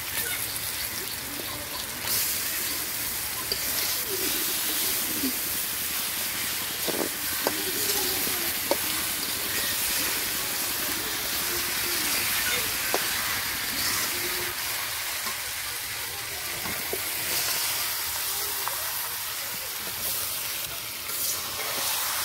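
Duck meat, onions and potatoes sizzling in hot oil in an iron karahi, a steady frying hiss as the meat starts to brown. A metal spatula stirs it, with a few short clicks against the pan.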